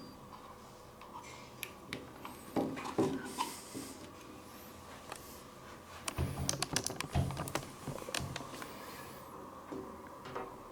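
Hands unpacking and handling small plastic parts and packaging from a wireless microphone kit: light clicks and rustles in two bunches, about two to three seconds in and again about six to seven seconds in.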